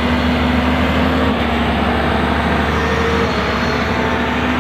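Hydraulic excavator's diesel engine running steadily.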